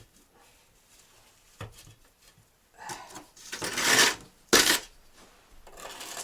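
Bricklaying sounds: a trowel scraping across brick and mortar for about a second and a half, then one sharp knock on the brickwork.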